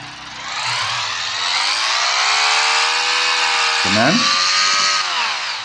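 Car engine sound effect from a car-fault simulator program, rising in pitch and level over the first second or two, running steadily, then falling away near the end.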